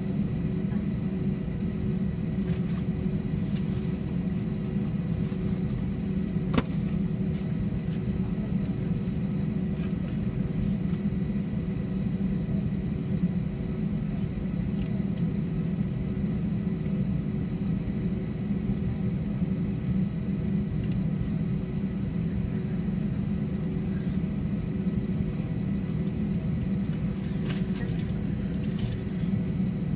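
Airbus A321-200 cabin noise on the ground with the engines running: a steady low rumble with a faint steady hum above it, and one light click about six and a half seconds in.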